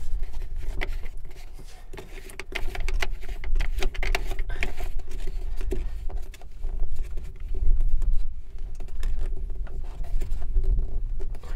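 Plastic Carflex liquid-tight conduit connector being screwed together by hand on an electrical box: irregular small clicks, scrapes and rubbing of plastic threads and parts, with low handling bumps.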